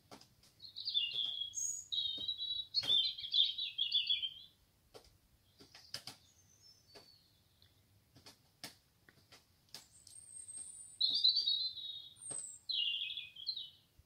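Common nightingale singing: fast trilled phrases for the first few seconds, then a stretch of separate sharp clicking notes and thin high whistles, then two more trilled phrases near the end. The song of what is probably a male seeking a mate.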